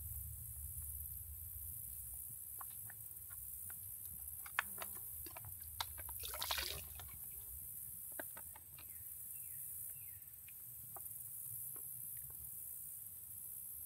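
Quiet outdoor ambience with a steady low rumble, scattered light clicks and taps, and a brief rustle about six and a half seconds in. Twice there is a faint short falling chirp.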